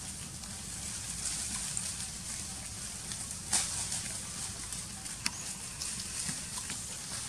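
Dry leaves and litter rustling and crackling as macaques scramble over the ground and hammock, over a steady outdoor hiss and a low rumble. There is a sharper crackle about three and a half seconds in and a brief high squeak a little after five seconds.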